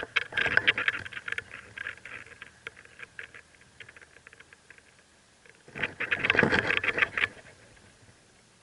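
Mockingbird nestlings chirping rapidly and rustling in the nest, in two loud bursts: one at the start that thins out to scattered ticks, and a second about six seconds in.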